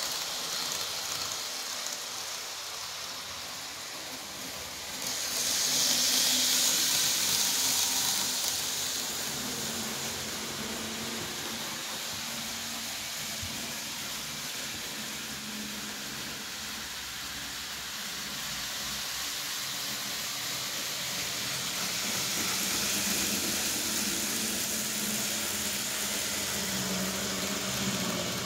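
Model trains (KiHa 85 series and 321 series) running on a home layout: a steady rushing hiss of wheels on track with a faint low motor hum. The hiss grows louder about five seconds in and again from about twenty-two seconds, as a train passes close by.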